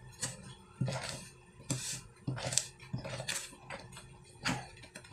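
A hand stirs dry rice flour, glutinous rice flour and sugar in a plastic mixing bowl: a run of short gritty scrapes and light knocks against the bowl, about one every half second to a second, over a faint steady hum.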